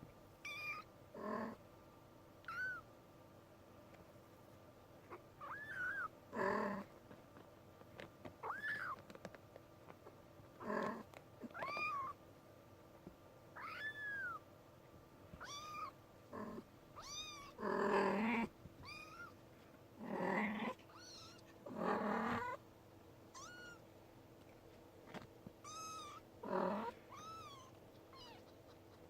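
Young kitten mewing again and again: short, high-pitched cries that bend up and down in pitch, with several louder, harsher calls every few seconds.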